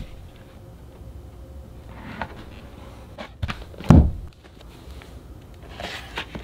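A large hardcover photobook sliding out of its hard slipcase: a few light knocks and scrapes, then a heavy thump about four seconds in as the book comes free, and some light rustling near the end.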